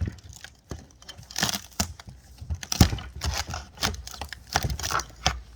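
Irregular crinkling, tearing and cracking noises, a dozen or so short bursts in quick succession, as the sign standing for the relationship is torn or broken apart by hand.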